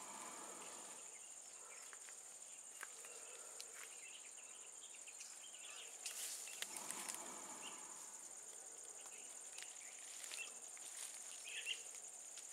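Steady high-pitched drone of insects in the forest, unbroken throughout, with faint low murmurs near the start and about six seconds in and a few scattered small clicks.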